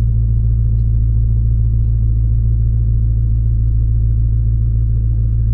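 Dodge Charger's Hemi V8 idling, a steady low rumble heard from inside the cabin.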